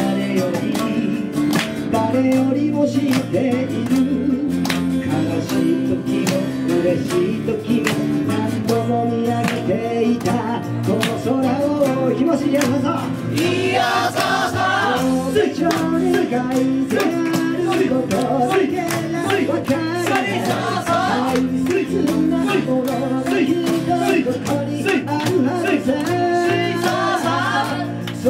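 Live acoustic band playing an Okinawan folk-pop song: sanshin, strummed acoustic guitars and ukulele, with a hand-held frame drum keeping a steady beat and singing over the top.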